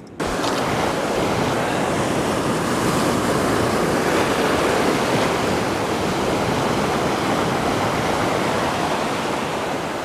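Ocean waves breaking and washing over coastal rocks: a steady rush of surf, a little louder around the middle.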